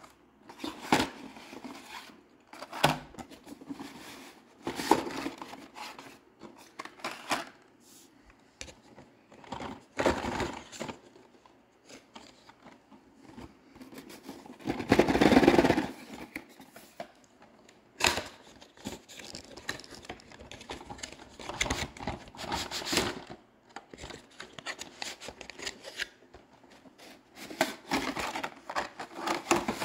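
Hot Wheels blister-card packages and cardboard being handled: irregular rustling, crinkling and scraping of card and plastic, with a longer, louder burst about halfway through.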